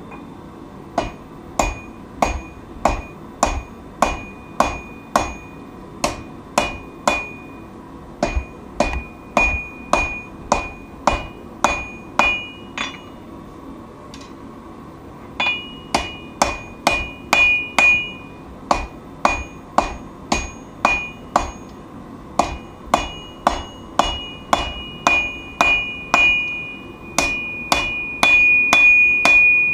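Forging hammer striking hot steel on an anvil, steady blows about two a second, each with a bright metallic ring, with a short pause about halfway through.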